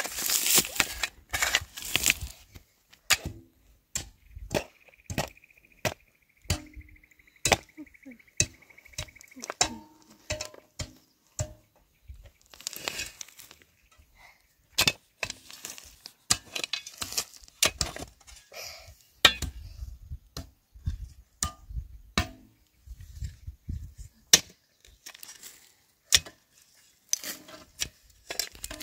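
Irregular knocks, clicks and clinks of objects being handled and set down by hand.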